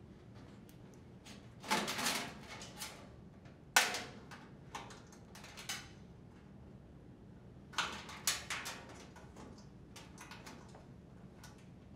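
Wire harnesses being handled and pulled through the openings in a dryer's sheet-metal top panel: several short bursts of rustling and light clicks, the sharpest about four seconds in.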